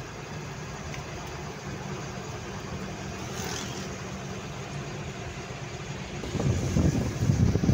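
A moving vehicle's engine and road noise, heard from on board as a steady drone, with a louder, uneven low rumbling for the last second or so.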